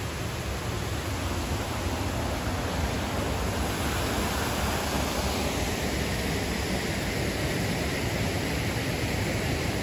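Steady rushing of a cascading mountain creek and small waterfall, the hiss growing a little brighter about halfway through.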